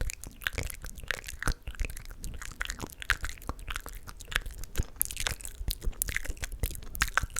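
Close-miked ASMR mouth sounds: a rapid, irregular run of wet clicks and smacks, with a short breathy hiss about five seconds in.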